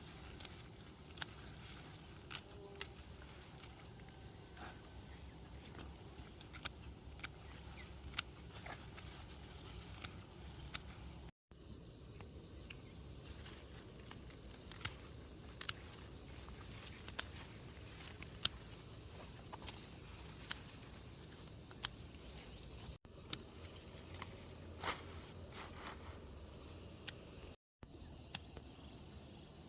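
Steady high-pitched chirring of insects, with scattered sharp clicks and taps heard over it. The sound drops out completely three times for a moment.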